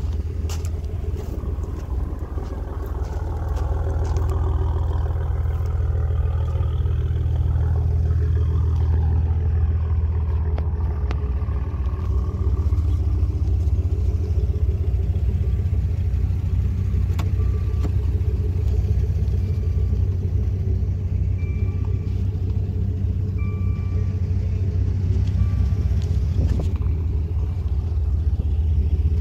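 A car engine idling steadily with a low, even rumble. In the second half a faint chime repeats about once every second and a quarter.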